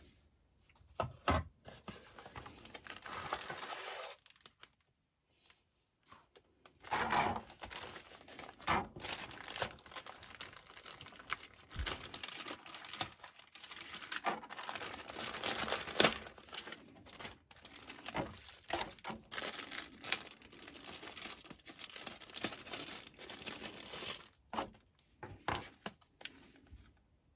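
Clear plastic packaging bag crinkling as it is handled and torn open, in irregular bursts with a short pause a few seconds in.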